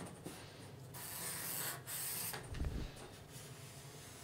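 Pencil scratching across paper in several long strokes with short gaps between, as straight guide lines are drawn and darkened. A soft low bump about halfway through.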